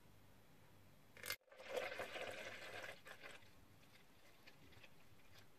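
A short tap about a second in, then clear soaking water pouring in a thin stream from a stainless steel pot into a plastic measuring jug. It is loudest for the first second or so and thins to a faint trickle. The water is being decanted off rice flour that has settled while soaking.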